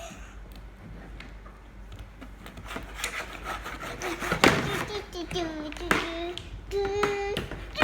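Knocks, taps and rubbing from handling a plastic toy, growing busier about halfway through, with short held vocal sounds among them.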